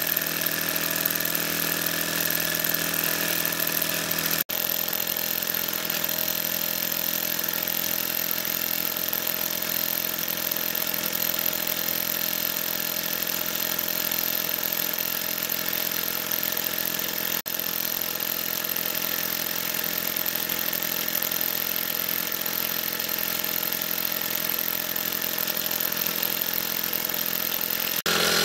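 Mamod Minor 2 model steam engine running flat out: the single-cylinder engine and its flywheel give a fast, steady chuffing whirr with a hiss of escaping steam.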